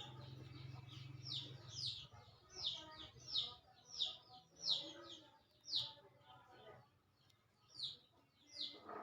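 Toy chick cheeping: short high peeps repeated about two or three a second, with a pause about six seconds in before they resume. A low steady hum runs under the first few seconds and stops.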